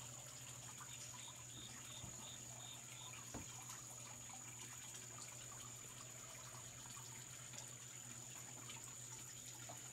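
Faint steady background hiss with a low hum and a thin high whine. About a second in comes a short run of faint high chirps, about four a second, along with a couple of soft taps.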